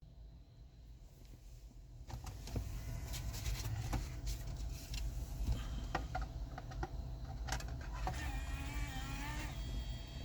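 Scattered clicks over a steady low hum, then a wavering small-motor whine for about a second and a half near the end.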